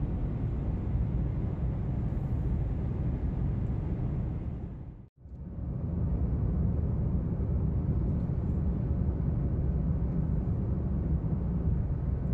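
Steady road and engine noise heard inside a car's cabin as it drives along a highway. About five seconds in it fades out to silence and back in within a second.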